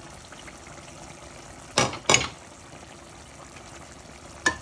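Tomato stew simmering in a stainless-steel pot, a steady bubbling hiss. Two sharp knocks come about two seconds in, and a short metallic clink near the end.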